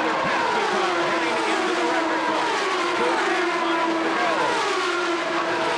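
Turbocharged Indy cars at racing speed. Several engine notes fall in pitch one after another as cars scream past, over a steady high engine drone that holds throughout.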